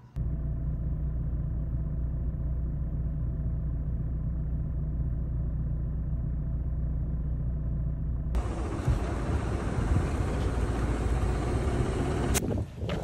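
Outdoor city traffic noise: a steady low engine rumble, then about eight seconds in an abrupt change to broader road and wind noise.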